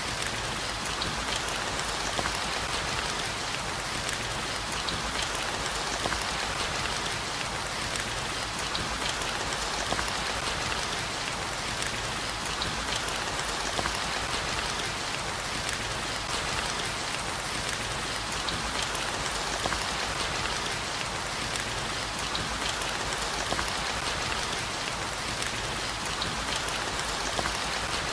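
Steady heavy rain, an even hiss of falling water with many small drop ticks scattered through it, unchanging throughout.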